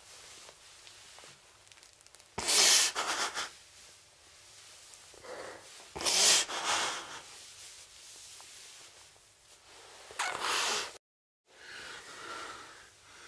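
A person crying: three loud, shaky sobbing breaths a few seconds apart, with quieter breathing between. The sound drops out completely for about half a second near the end.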